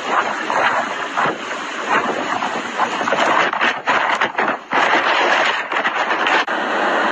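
Storm wind buffeting a microphone, a loud gusting rush that surges and drops out briefly several times; about six and a half seconds in it changes abruptly to a steadier rushing hiss.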